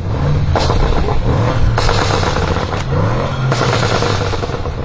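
Audi RS6 Avant C8's twin-turbo 4.0-litre V8, running through a Capristo exhaust with the particulate filter deleted, revving with the pitch rising and falling. Several sharp cracks from the exhaust cut through the engine note.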